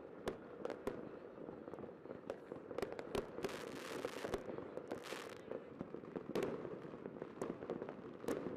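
Fireworks exploding: scattered sharp bangs and pops at irregular intervals, with two stretches of hissing crackle a little past the middle.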